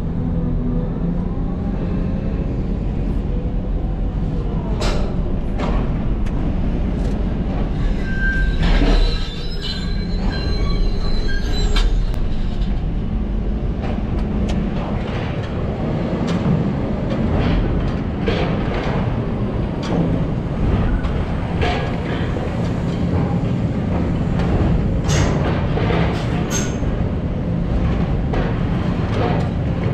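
Excavator working on the steel floor of a cargo ship's hold: its diesel engine runs steadily while the bucket scrapes and clanks against the steel, with repeated metal impacts and some squealing.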